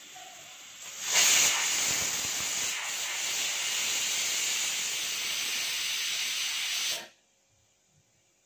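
Pressure cooker venting steam through its weighted whistle: a loud, steady hiss that starts suddenly about a second in and cuts off abruptly near the end. The venting shows the cooker has come up to full pressure.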